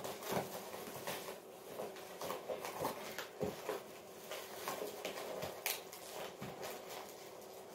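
Cardboard packaging and bubble wrap rustling and crinkling in irregular little crackles as a mug is worked out of its box by hand.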